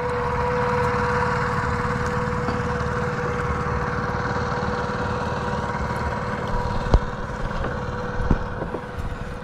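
Small boat engine running steadily, a constant hum with a low rumble beneath it. A short knock about seven seconds in.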